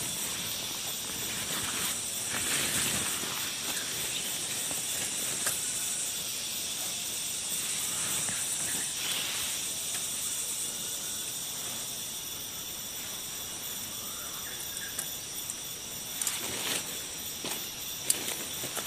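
Steady high-pitched insect chorus, a continuous hissing drone of crickets or cicadas, with a few short clicks or rustles near the end.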